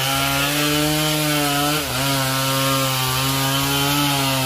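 Chainsaw held at full throttle, cutting through a coconut trunk. Its pitch stays steady apart from a brief dip about two seconds in.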